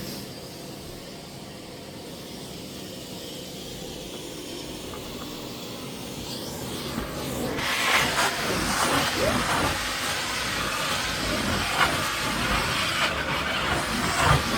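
Miele CX1 Blizzard vacuum cleaner running with a steady hissing rush. About seven seconds in it rises in pitch and gets louder, with a few knocks and rattles as the floor head works.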